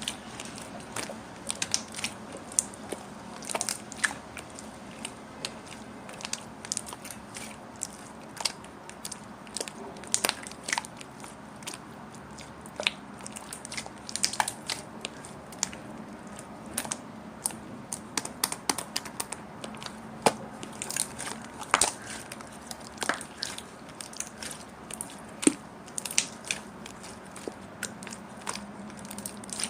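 Clear slime being worked by hand, giving irregular small sticky pops and clicks, several a second.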